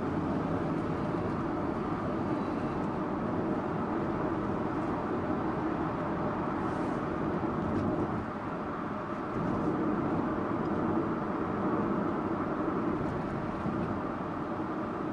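Subaru Impreza Sports Wagon (GG2) on the move: steady engine and road noise. It eases off briefly about eight seconds in and picks up again a second or so later.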